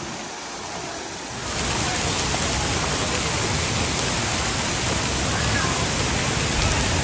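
Rushing, splashing water from the fountain jets and pouring sprays of a waterpark splash play structure, a steady noise that gets louder about a second and a half in.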